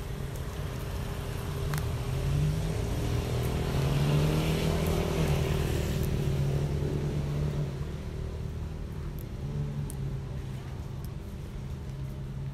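A motor vehicle's engine running off-screen: a steady low hum that swells louder, with its pitch rising and falling, between about two and seven seconds in, then eases back.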